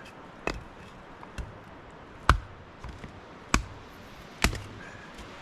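An axe chopping wet black spruce for kindling: about five sharp, separate blows roughly a second apart, the third the loudest. The wood is knotty with crooked grain, which makes it hard to split.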